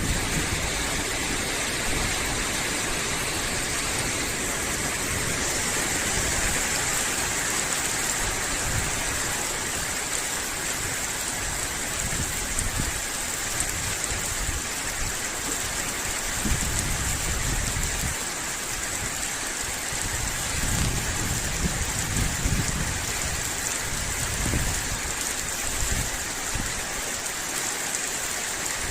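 Steady rain falling, an even hiss that keeps on without a break, with low rumbles that come and go.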